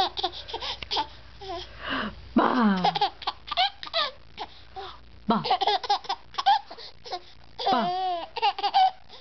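Baby laughing in several bursts of short, high-pitched laughs and giggles, with brief pauses between them.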